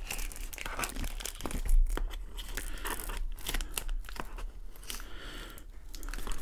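Plastic shipping wrap on a long box crinkling and tearing as it is cut open with small scissors, in irregular crackles and rustles, with a dull bump just before two seconds in.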